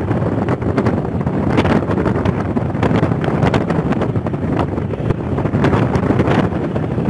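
Steady wind rush and road noise from a moving vehicle, with wind buffeting the microphone in short gusts.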